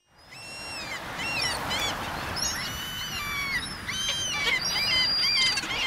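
A flock of gulls calling over one another in many short, repeated cries, over a steady rushing background; the sound fades in at the start.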